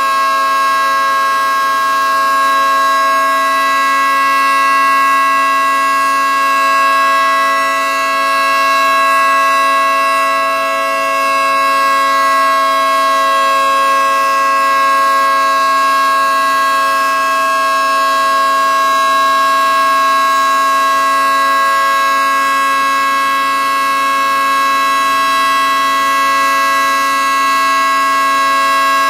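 Federal Signal 2T22B electronic outdoor warning siren sounding a loud, steady tone that holds one pitch with no rise and fall.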